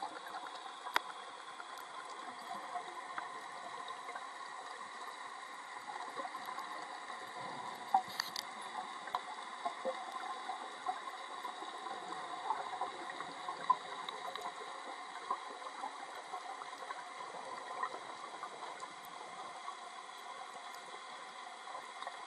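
Underwater sound: a steady hiss with scattered sharp clicks and crackles, a few louder clicks about a second in, around eight seconds and near fourteen seconds, with some bubbling from the divers' breathing gear.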